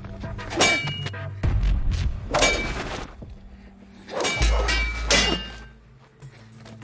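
Metal blades clashing in a sword fight: about four sharp, ringing clangs, one near the start, one in the middle and two close together later on. A deep low boom sits underneath.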